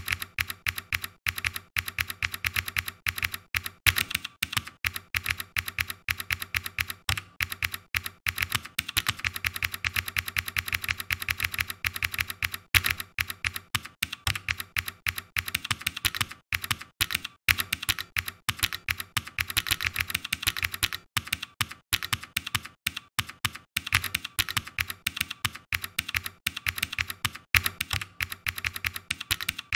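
Rapid, continuous typing on a computer keyboard: a dense run of keystroke clicks.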